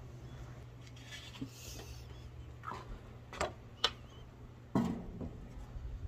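Five or so light knocks and clinks spread over a few seconds, the strongest near the end, over a faint steady low hum.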